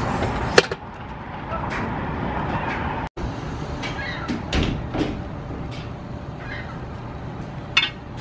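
Steady low outdoor rumble, with a few sharp clicks and knocks: the loudest just under a second in and near the end.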